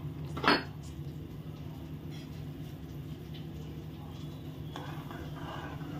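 Water and chopped vegetables boiling in a pan on a gas stove: a steady low rumble with bubbling. A brief sharp knock about half a second in is the loudest sound, and the bubbling turns louder and hissier about five seconds in.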